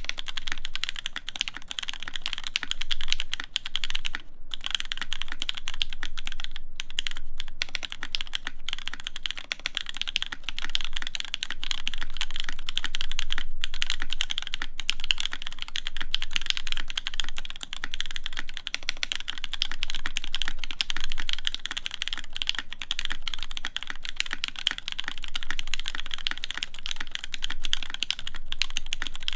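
Fast, continuous typing on a mechanical keyboard with stock Gateron Cap v2 Milky Brown tactile switches, aluminium plate and GMK Apollo keycaps: a dense run of key clacks with a few brief pauses.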